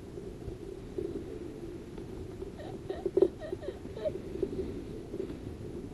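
Faint, short voice sounds about halfway through, over a steady low background noise.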